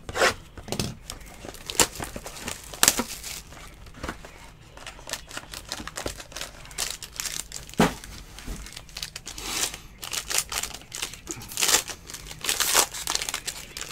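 Plastic wrap and the foil wrapper of a trading-card pack crinkling and tearing as a box is unwrapped and the pack pulled open, in a string of sharp crackles that grows busier near the end.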